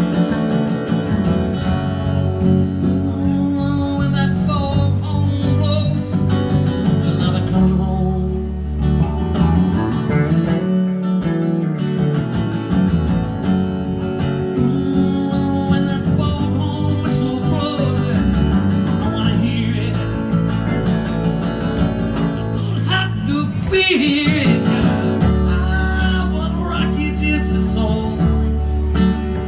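Live acoustic guitar and electric bass playing a song, the guitar strummed over steady bass notes, with a man singing along at times.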